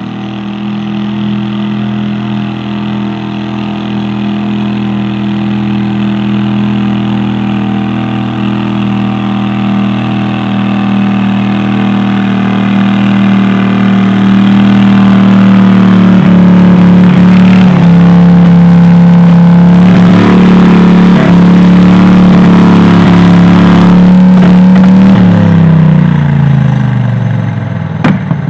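Modified pulling garden tractor's engine held at full throttle, hauling the weight sled down the track, growing louder as it comes closer. About 26 seconds in, the revs drop away as the pull ends.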